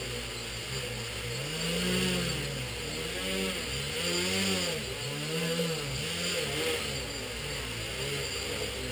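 Tricopter's brushless motors and propellers running, their whine rising and falling in pitch about once a second. The flight controller is speeding and slowing the motors to counter the frame being tilted by hand: its stabilisation response at work.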